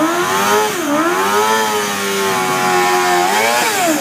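Suzuki GSX-R sportbike's inline-four engine held at high revs during a burnout, spinning the rear tyre. The revs dip briefly about a second in, hold steady, then drop away near the end.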